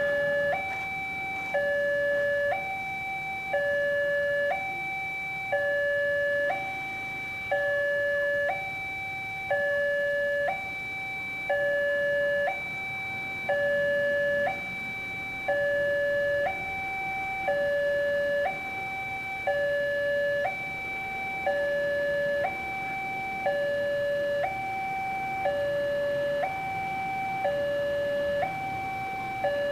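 Indonesian railway level-crossing warning alarm sounding from a horn loudspeaker on the signal post: an electronic two-tone signal that switches between a lower and a higher tone about once a second, warning that a train is approaching while the barriers are down.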